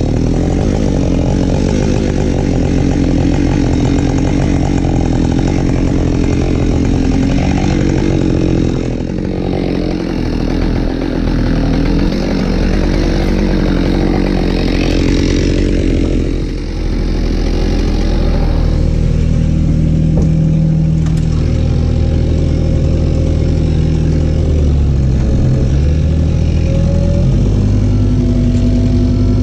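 Husqvarna 572XP two-stroke chainsaw running and cutting firewood, with brief dips in its sound twice. Near the end a lower, steadier engine hum takes over.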